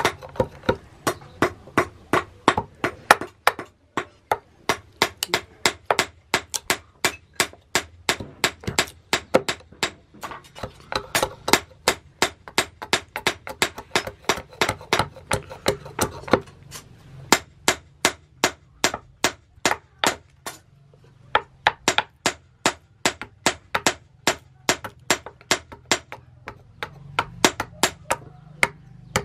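Large hand-forged knife chopping into an upright block of wood, quick regular strokes about three a second, with a short pause about two-thirds of the way through.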